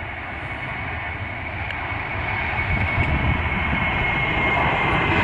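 Boeing 737-700's CFM56-7B turbofans at takeoff thrust during the takeoff roll. The engine noise grows steadily louder as the jet comes closer, with a thin fan whine over a broad rushing roar.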